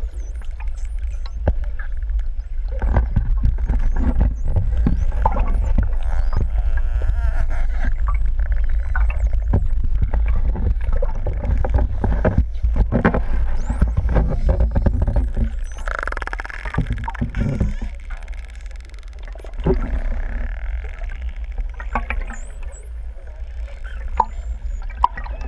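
Underwater sound among pantropical spotted dolphins: a steady low rumble with many sharp clicks and a few faint high whistles.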